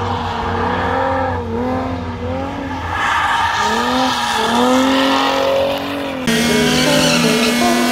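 Drift Mustang's 3.7-litre Cyclone V6 revving up and down through a drift, with tires squealing. The sound changes abruptly about six seconds in.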